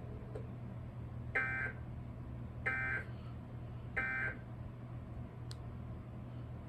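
Emergency Alert System end-of-message (EOM) signal: three short bursts of two-tone SAME digital data, about 1.3 seconds apart, closing a required monthly test. A low steady hum runs underneath.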